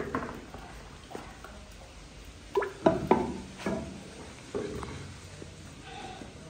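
Cooking utensils knocking and clinking: a metal ladle and a small metal cup striking against a clay cooking pot and plastic buckets. The knocks come in a short cluster around the middle.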